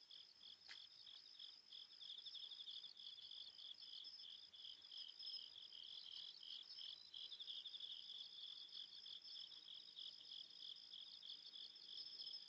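Crickets chirping faintly in a steady run of rapid pulsed trills, as night ambience on an old film soundtrack. There is one faint tick just under a second in.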